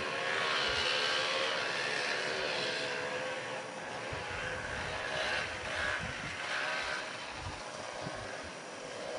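Rokon two-wheel-drive motorcycle's small engine running at a distance as it rides through snow, its pitch rising and falling as the throttle is worked, loudest in the first couple of seconds.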